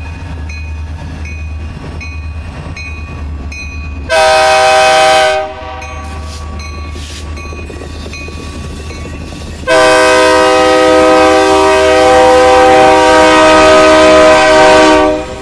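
Multi-chime air horn of an RJ Corman diesel locomotive, a short blast about four seconds in and then a long blast about ten seconds in, over the steady low rumble of the passing train's diesel engines. The horn pattern fits the end of a grade-crossing signal.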